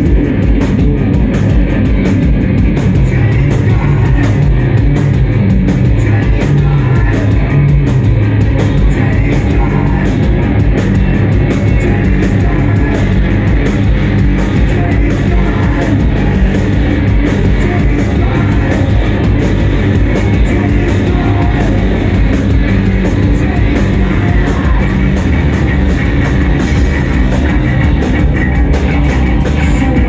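Live rock band playing loud and dense: drum kit keeping a steady driving beat under a heavy low drone, with guitar and synthesizers.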